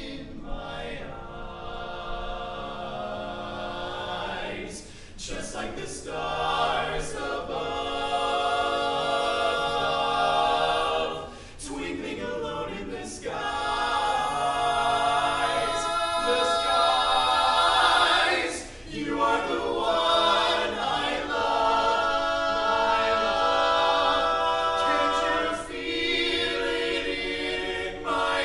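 Male barbershop quartet singing a cappella in close four-part harmony: held chords in phrases, with brief breaks for breath between them, growing louder toward the middle.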